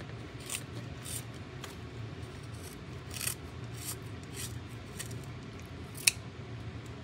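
Kitchen scissors snipping through a raw fish's belly from the vent to gut it: a series of short, crisp snips at irregular intervals, the loudest one near the end.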